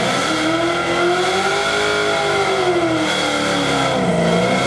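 Ford Mustang Cobra's V8 revving hard and held high for a burnout. The pitch climbs to a peak about two seconds in, sags briefly near the end, then rises again as the rear tyres start to smoke.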